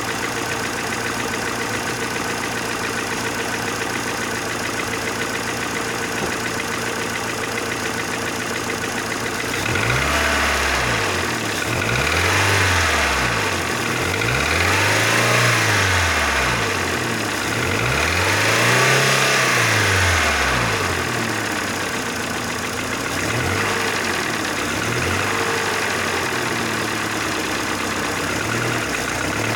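Mercedes Vaneo / A-Class 1.6-litre four-cylinder petrol engine idling with the ticking knock of its hydraulic valve lifters. About ten seconds in it is revved three times, each rev rising and falling, then given two lighter blips before it settles back to idle.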